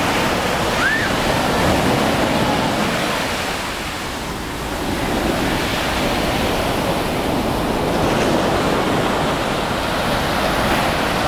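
Sea waves breaking and washing ashore in a continuous rush of surf, easing slightly about four seconds in before building again.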